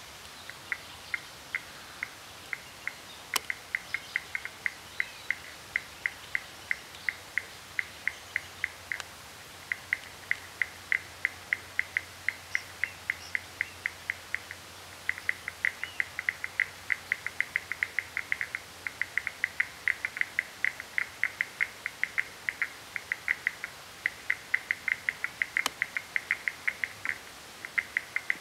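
Batrachyla antartandica frog calling: a long series of short, high clicking notes at about four to five a second, broken by brief pauses.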